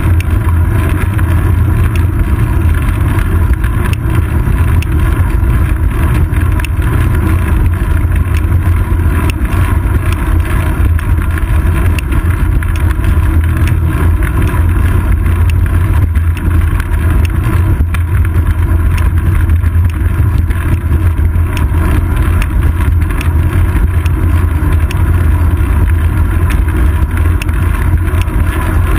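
Steady low wind rumble and road noise on a seat-post-mounted GoPro Hero 2 camera while a bicycle rides along a paved road.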